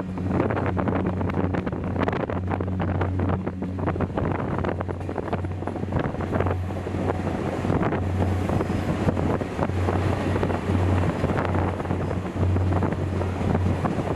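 Train on the move: a steady low rumble with dense clattering, and wind buffeting the microphone.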